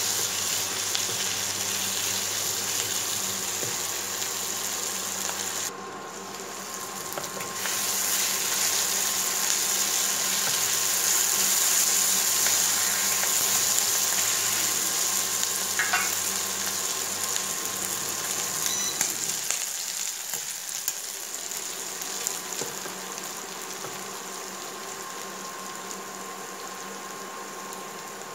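Chicken pieces and chopped peppers and onion sizzling in oil in a nonstick frying pan while being stirred with a wooden spoon. The sizzle thins briefly about six seconds in and dies down over the last third.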